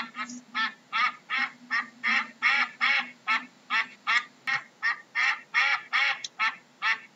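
Ducks quacking in a continuous series, about three quacks a second.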